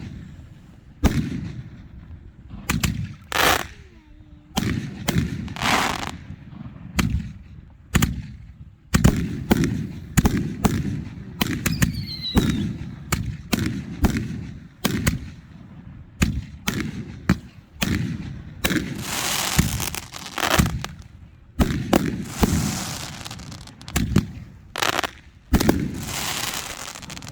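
Fireworks going off in a rapid series of sharp bangs, one or two a second, with a brief falling whistle about twelve seconds in and stretches of crackling about two-thirds of the way through and again near the end.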